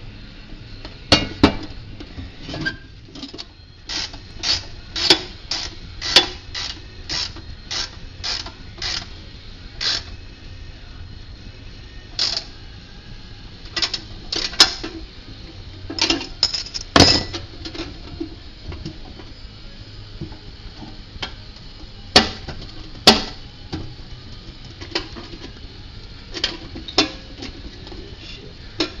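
Ratcheting wrench tightening a bolt through a rusty steel panel: a run of sharp metallic clicks about two a second, then scattered clinks and knocks of metal parts being handled.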